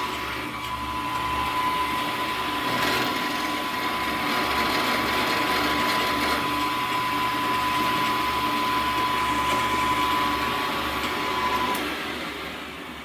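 Milling machine spindle motor running with a steady high whine over a mechanical hum, winding down and stopping about twelve seconds in.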